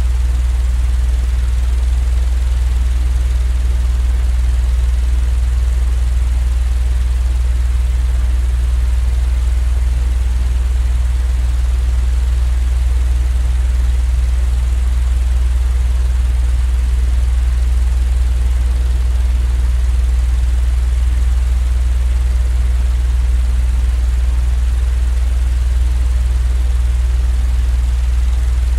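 A continuous white-noise sleep sound: a steady low drone under an even hiss, unchanging throughout.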